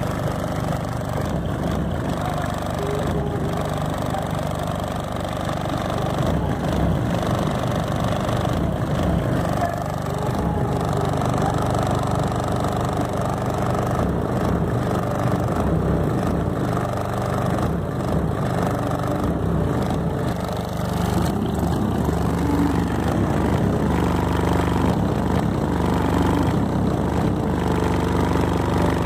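Car-audio subwoofers playing steady, heavy low bass.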